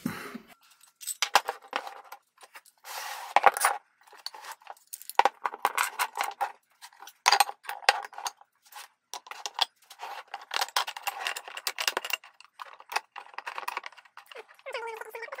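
Hardwood boards and thin strips clacking against each other and knocking on steel pipe clamps as they are laid out for a glue-up: a string of sharp clicks, clatters and metal clinks in short bursts.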